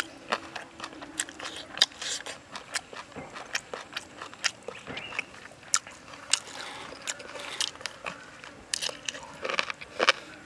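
A person biting and chewing curried pork ribs, tearing meat off the bone, with many irregular sharp mouth clicks.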